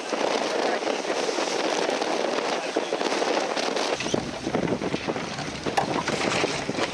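Water rushing and splashing along the hull of a sailboat sailing fast and heeled over. From about four seconds in, wind buffets the microphone with a low rumble on top of the water.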